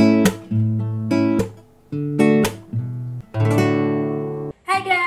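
Intro music: acoustic guitar strumming chords, each strum separate and left ringing in a stop-start rhythm.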